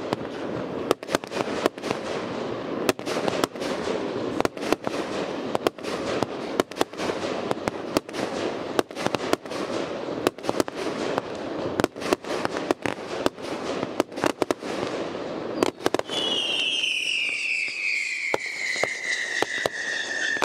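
Fireworks display: a rapid, irregular string of sharp bangs from bursting aerial shells. About sixteen seconds in, the bangs give way to a whistling firework's long, falling whistle that runs on to the end.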